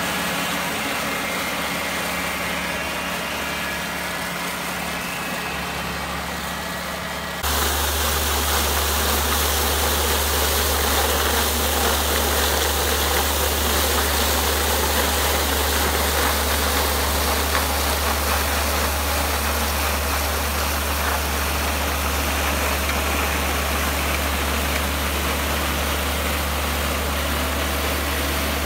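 A John Deere tractor's diesel engine runs while the front-mounted WeedControl Steel Maximo's three spinning steel-wire brushes scrape weeds out of cobblestone joints. About seven seconds in, the sound changes abruptly to a louder, hissier scraping over a deep steady hum.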